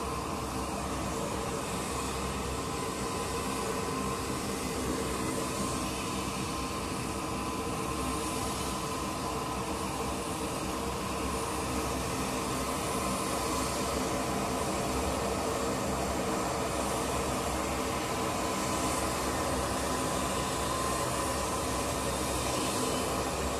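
Ski-equipped LC-130 Hercules running its four Allison T56 turboprop engines at ground power on the skiway: a steady propeller drone with a high turbine whine, growing a little louder after about halfway as the aircraft edges closer.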